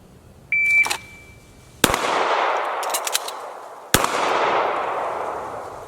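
A shot timer's high beep, then a handgun shot, a few clicks of a slide-lock reload, and a second shot about two seconds after the first. Each shot leaves a long fading echo.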